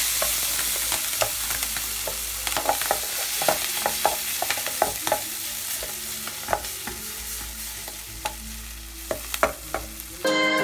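Shelled freshwater clam meat (hến) sizzling in a hot metal frying pan over a wood fire as it is tipped in and stirred, with many sharp clicks and knocks from the stirring. The sizzle is loudest at first and slowly dies down.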